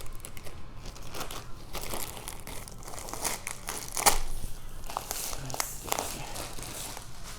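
Plastic packaging crinkling and rustling as a diamond-painting canvas is handled, with irregular crackles and one sharper crackle about four seconds in.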